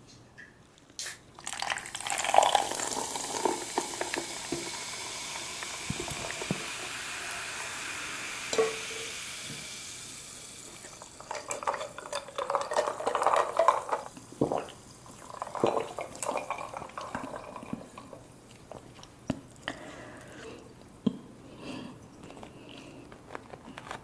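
A steady pouring or running-liquid sound for several seconds, followed by irregular clattering of dishes and cutlery that fades to scattered small clinks.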